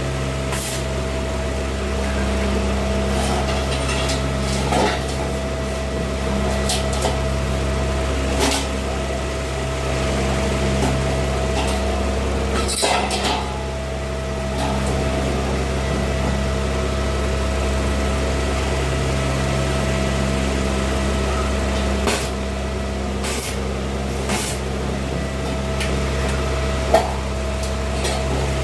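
Electric welding equipment humming steadily, with a thin steady tone over it and scattered sharp clicks and crackles.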